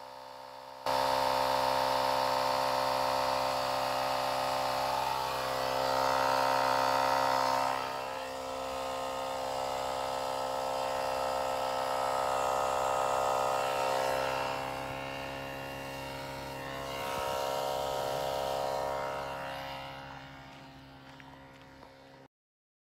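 Portable electric air compressor running steadily as it inflates a car tire. It starts about a second in, its hum rising and falling a little under load, and cuts off suddenly near the end.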